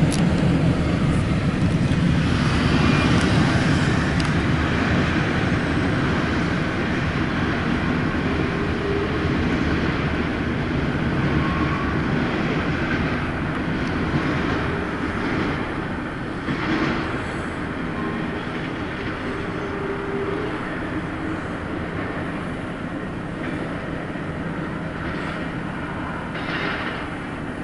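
Double-stack intermodal well cars of a CSX freight train rolling past, a steady rumble of steel wheels on the rails that slowly fades as the end of the train draws away.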